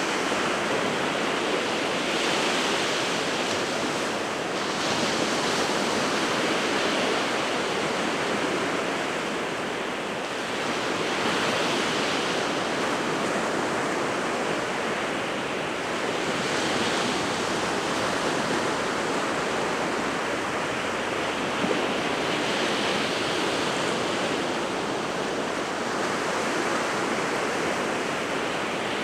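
Surf of the winter Sea of Japan breaking on the shore: a continuous wash of waves that swells and eases about every five to six seconds.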